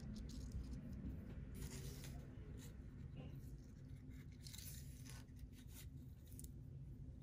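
Faint rustling and scratching of fishing line and a spring-cage carp feeder in a plastic cap being handled by fingers, a few short scratches at a time, over a low steady hum.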